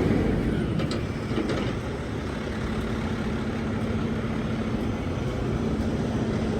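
Low, steady rumble of a motor vehicle running, with a faint steady hum joining in about two and a half seconds in.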